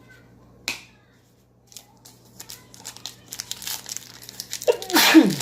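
A trading-card pack wrapper being crinkled and torn open, a single click about a second in and then a growing run of crackling that is loudest near the end. A short, loud throaty vocal sound falls in pitch right at the end, just before an "excuse me".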